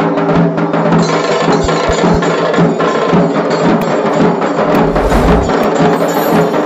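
Dhol tasha drumming: tasha drums struck with sticks in a fast, dense roll of sharp cracks over dhol beats, with a heavier low thud about five seconds in.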